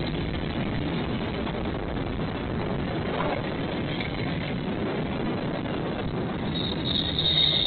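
Train rolling past with a steady running noise, and a high-pitched squeal starting near the end.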